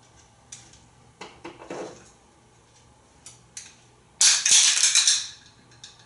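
An African grey parrot rummaging through toys in a wooden drawer: scattered clicks and knocks, then about a second of loud clattering about four seconds in.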